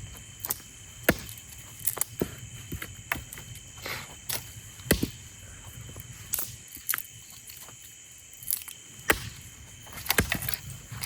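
Irregular sharp knocks and cracks, roughly one a second, with a steady high-pitched hum throughout.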